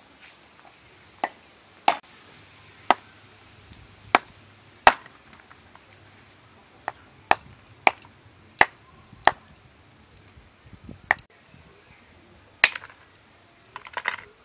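A block of home-frozen ice being broken into pieces by sharp knocks from a small brass tool. About a dozen separate hits come at irregular intervals, roughly a second apart.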